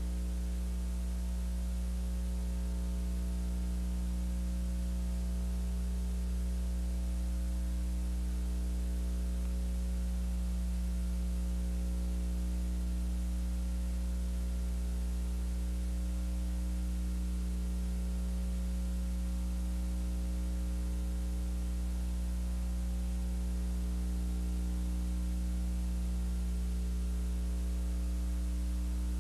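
Steady electrical mains hum with a ladder of overtones over a layer of static hiss, and nothing else: the bare noise of an analog video recording under a silent film.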